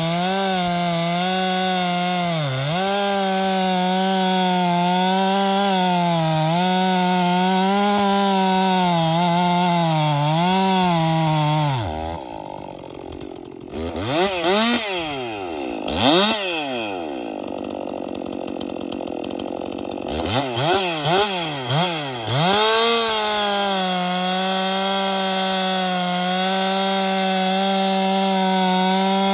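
Woods-ported Stihl MS362 two-stroke chainsaw cutting through a log at full throttle, its steady high note sagging briefly under load. About twelve seconds in it drops back, is revved up and down sharply several times, then holds full throttle in the cut again for the last several seconds.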